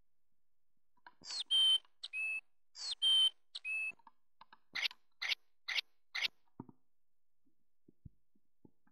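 2009 VTech Singspaß toy microphone playing a sound effect through its small speaker: a two-part whistled chirp heard twice, then four short sharp noisy bursts about half a second apart.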